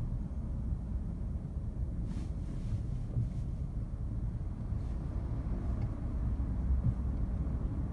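Steady low road and tyre rumble heard inside the cabin of a Fiat 500e electric car driving at speed, with no engine note; a faint hiss swells briefly a few times, about two to five seconds in.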